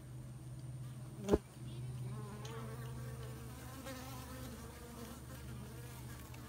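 Honey bees buzzing at a hive entrance, a steady hum with the wavering wing tones of single bees flying in and out. A single sharp click about a second in.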